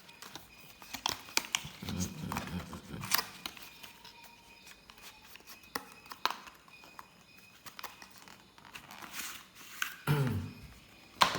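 Cardboard box and paper packaging being handled and opened: scattered light clicks and taps with some rustling, the loudest near the start and near the end.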